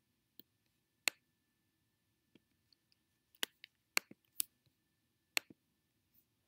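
Computer mouse clicking: about a dozen single sharp clicks, scattered, and bunched closer together between about three and a half and four and a half seconds in.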